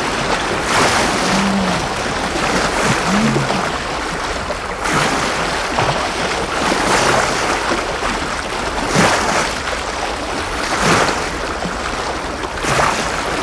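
Choppy open water slapping and splashing, swelling every second or two, with wind noise on the microphone.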